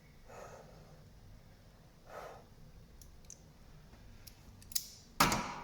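Faint handling noises and a few light clicks at a workbench, then one sharp clack about five seconds in, as tools and the connector are handled during soldering.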